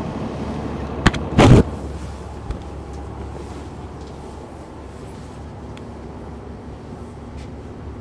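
Interior of a Neoplan AN459 articulated transit bus with its Caterpillar C-9 ACERT diesel running steadily, heard from the back of the bus. About a second in there is a sharp click, then a brief loud clatter, after which the rumble settles a little lower.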